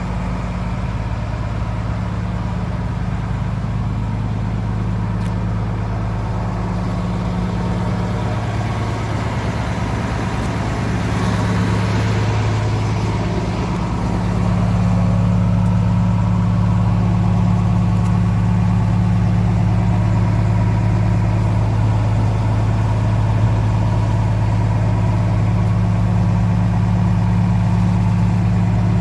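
Demag DF-140 C asphalt paver's diesel engine running steadily, a low, even hum that gets louder a little under halfway through and holds there.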